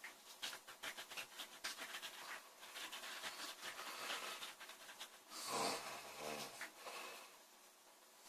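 A sleeping girl snoring: a few seconds of irregular crackling, then a loud pitched snore about five and a half seconds in that lasts about a second.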